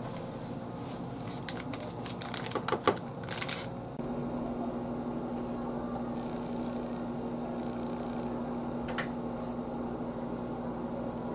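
A few light clicks and taps, then from about four seconds in a Panasonic microwave oven running with a steady hum and fan noise as it preheats for baking.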